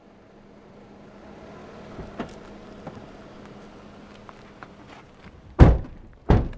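A low steady hum with a few faint clicks, then two heavy thumps less than a second apart near the end.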